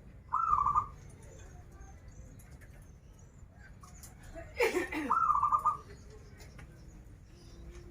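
Zebra dove (perkutut) cooing twice, each a short call of quick rolling notes, the second about five seconds after the first. A louder falling sound comes just before the second call.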